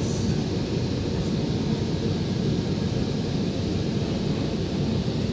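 Steady rumble of a Korean-built MTR K-Train electric multiple unit running at speed, heard from inside the carriage: wheels on rail and running gear with an even, low-pitched noise.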